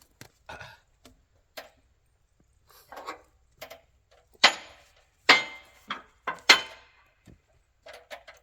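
Knocks and clatter of log-loading gear being handled and set down: a string of separate knocks, with three loud ones a little past halfway.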